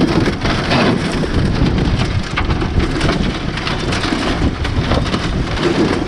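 Strong wind buffeting the microphone in an open boat: a loud, continuous rushing noise with fine crackle.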